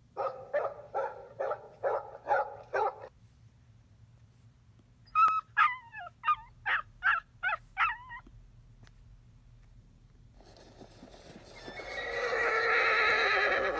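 Recorded animal sounds from a Sound Touch toy. A large dog barks about seven times at an even pace, then a puppy gives about seven quick high yips. Near the end a horse neighs, swelling up loud and wavering.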